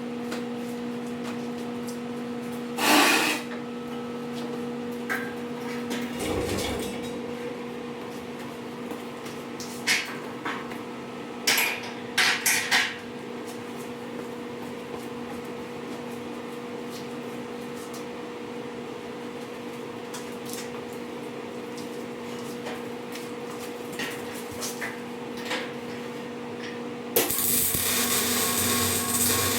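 Workshop sounds: a steady electrical hum with scattered knocks and clanks of tools being handled. A power tool starts up suddenly near the end and keeps running.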